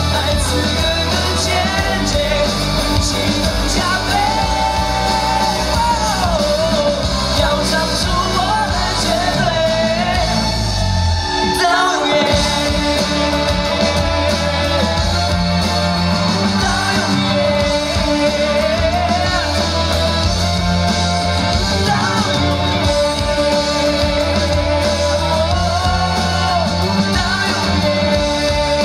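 Live upbeat pop-rock song on a concert stage: a singer's voice over an amplified band, with a short break in the bass about twelve seconds in.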